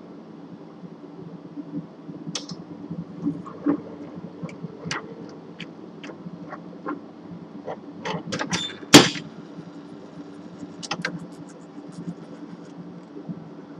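Quantulus liquid scintillation spectrometer's sample conveyor on a test run: a steady machine hum with scattered mechanical clicks and knocks. A quick cluster of clicks comes about eight seconds in, ending in the loudest knock about a second later.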